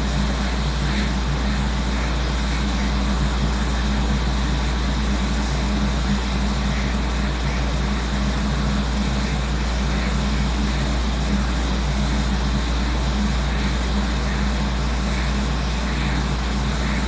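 Steady rush of air from a hot-air rework station blowing on a PS5 circuit board to melt the solder under a port, with a low hum underneath.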